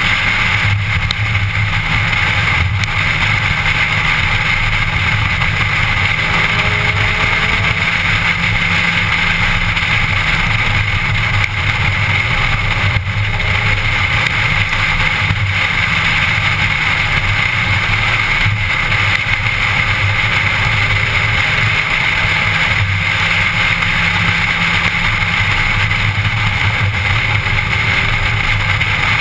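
Steady engine, tyre and wind noise inside the cabin of a car driving at speed, with faint slow changes in pitch as the engine speed varies.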